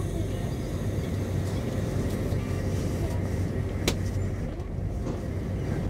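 SJ X40 double-deck electric train running, heard from inside the carriage: a steady low hum over an even rumble, with a single sharp click about four seconds in.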